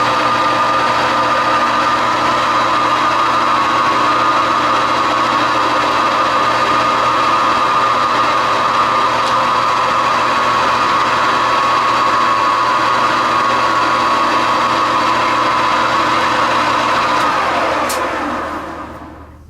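Metal lathe running with a steady whine while it turns down the diameter of a steel screw, then switched off near the end and spinning down, its pitch falling as it slows.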